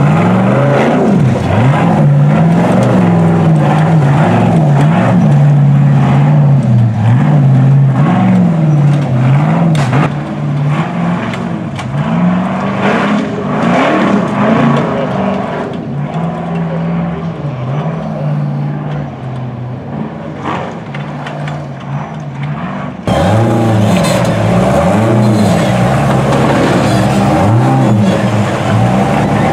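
Ultra4 off-road race car engine revving in repeated bursts, its pitch rising and falling as the car crawls over rocks. About two thirds of the way in the sound cuts abruptly to another car's engine revving the same way.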